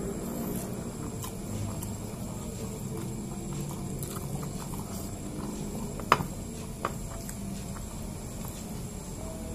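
Close-miked chewing and mouth sounds of a man eating nasi padang by hand, with fingers picking rice and meat off a plate. Two sharp clicks come about six and seven seconds in, over a steady low background noise.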